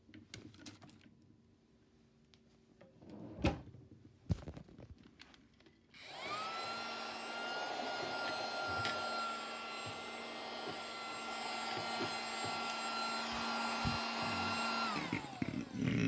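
Small handheld vacuum cleaner switched on about six seconds in, its little motor running with a steady high whine for about nine seconds, then switched off and winding down with a falling pitch. A few knocks of handling come before it starts.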